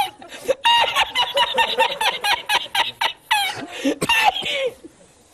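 A person laughing hard: a rapid, cackling run of short high-pitched pulses, then a few longer whoops, dying away about a second before the end.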